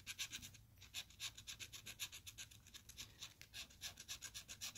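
A pen tip scratching the coating off a scratch-off lottery ticket in quick short strokes, several a second, faint and steady.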